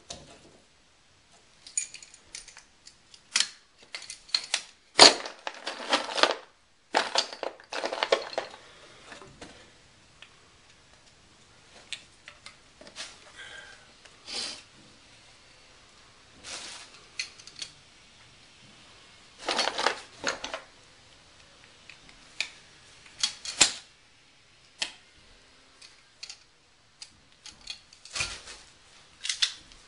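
Handling noise of PEX plumbing work: scattered clicks and taps of plastic tubing and a fitting being handled, with a few louder short scraping rustles.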